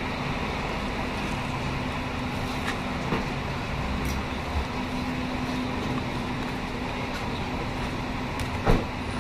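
Steady traffic-like background noise with a low hum, with a few faint clicks of the manual gearbox's steel gears and shaft being handled. Near the end comes one sharp metal knock.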